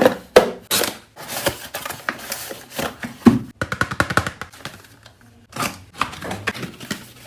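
A parcel of slime supplies being unboxed: packaging handled and opened in a run of irregular clicks and rustles, over background music.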